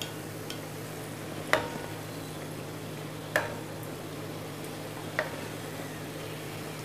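Bhatura deep-frying in hot oil with a steady sizzle, while a metal ladle scoops oil and pours it over the bread, clinking against the pan three times about two seconds apart.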